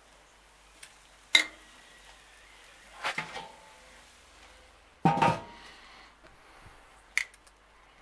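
Steel grill tongs clinking against the grill's griddle plate and grate in several separate metallic clinks, with a heavier clank about five seconds in as the grill's domed lid is closed.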